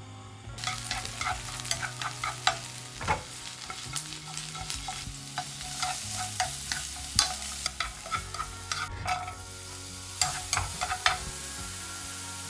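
Sliced mushrooms frying in hot oil in a nonstick pan: a sizzle that starts about half a second in, with frequent clicks and scrapes of a utensil stirring them against the pan.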